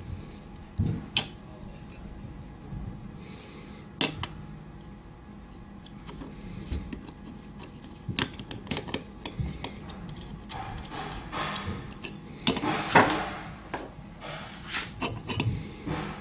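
Small metal clicks and scrapes as wire springs are hooked onto the frames of a Columbia drywall angle head. Sharp separate clicks at first, then a busier stretch of clinking and scraping in the last third, loudest about 13 seconds in.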